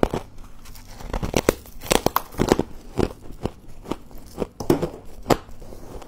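Packed freezer frost being bitten and chewed close up: a rapid, irregular series of crisp crunches.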